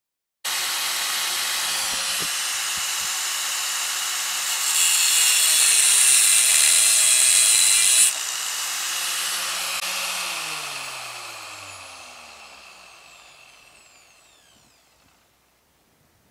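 Angle grinder with a cut-off disc starts up and runs, then cuts through a steel threaded rod clamped in a vise, louder and hissier from about five seconds in. The cut ends suddenly about eight seconds in and the grinder winds down, its pitch falling as it fades over several seconds.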